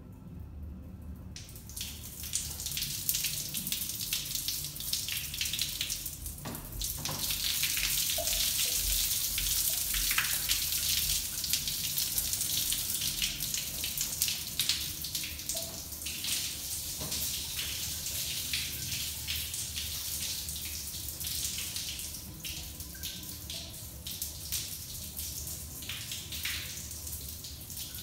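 Waterfall urinal running: water cascading down its fieldstone wall into the drain. The splashing starts about a second and a half in, is loudest through the middle, and eases off near the end.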